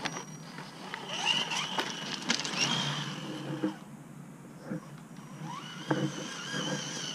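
Gmade GOM RC rock crawler's electric motor and gears whining, the pitch rising and falling with the throttle, with a few sharp knocks as it climbs over rocks. The whine drops away briefly about four seconds in, then returns.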